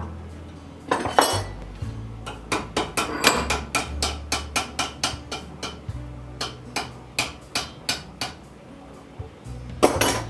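Small hammer striking a cold chisel to shear thin sheet steel held in a bench vise: a quick run of sharp metallic blows, about four a second, then a pause and two more blows near the end.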